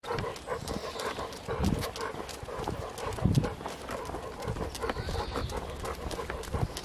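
Footsteps and dogs moving about on a walk: irregular clicks with a few heavier thumps.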